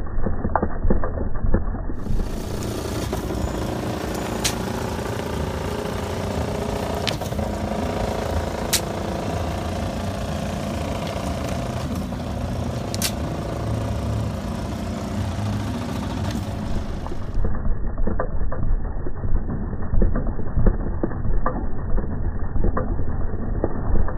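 A motor-driven soil sifter running, with soil pouring through its screen, for the first two seconds and again from about 17 seconds on. In between comes a steady outdoor hum with a few sharp knocks from soil being shovelled through a leaning wire hand screen.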